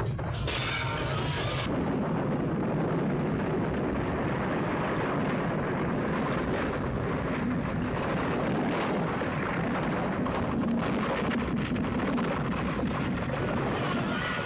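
Movie earthquake sound effects: a continuous heavy rumble mixed with crashing and falling debris as buildings collapse.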